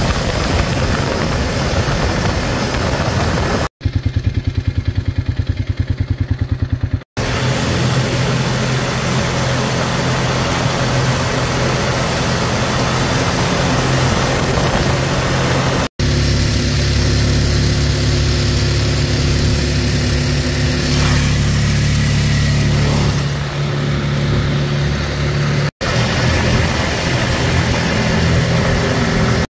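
Off-road vehicle's engine running at speed on a gravel trail, with tyre and wind noise. The sound drops out for an instant a few times where clips are joined, and for about three seconds starting some four seconds in it turns into a fast low fluttering.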